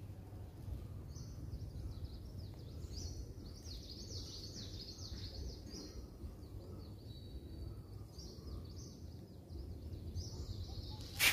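Small birds chirping over and over, short high calls with falling notes, above a steady low outdoor rumble. A sharp knock comes right at the end.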